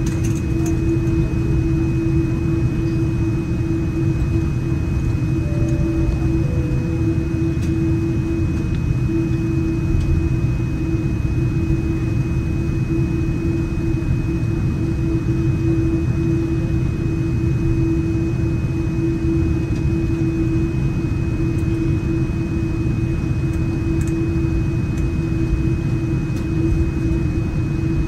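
Cabin noise inside a Boeing 787-9 Dreamliner taxiing: a steady low rumble with an even hum and a thin high whine over it.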